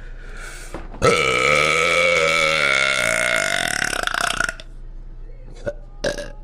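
A person's long, loud burp lasting about three and a half seconds, starting about a second in, with a low, wavering pitch. Near the end comes a short, sharp sound.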